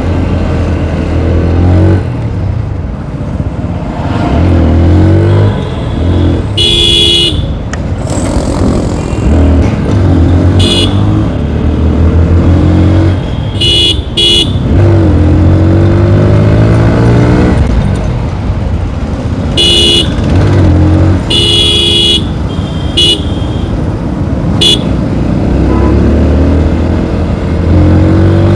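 TVS Apache RTR 160 4V's single-cylinder engine running under way, its pitch rising and falling repeatedly as it accelerates and shifts through the gears. About nine short vehicle horn honks cut in, some in quick pairs.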